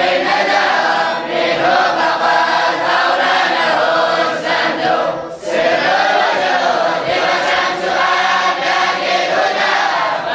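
Many male voices, students of a traditional Quranic school, chanting Arabic religious text together in unison, with one short dip for breath about five seconds in.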